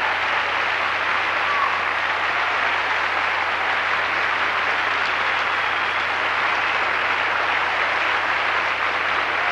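A theatre audience applauding steadily, a dense even clapping, with a faint steady low hum underneath.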